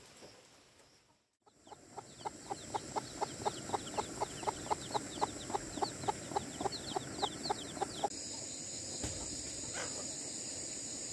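Chickens clucking in a rapid, even run of about four clucks a second, with high falling chick peeps among them. The calls cut off about eight seconds in, giving way to a steady high hiss.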